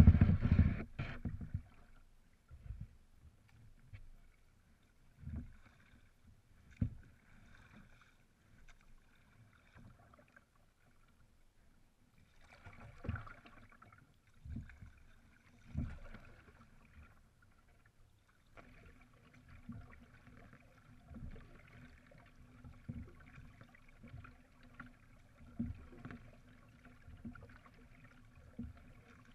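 Canoe being paddled on calm water, heard through its hull: a low thud with each paddle stroke, coming every second or two and more regularly in the second half, where a faint steady water hiss joins in. A few loud knocks open the sound.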